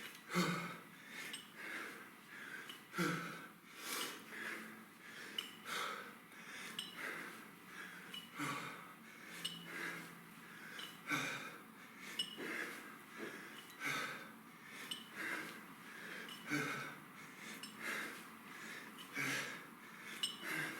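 A man breathing hard while doing kettlebell cleans, a sharp exhale about once a second. Three dull knocks come through along the way.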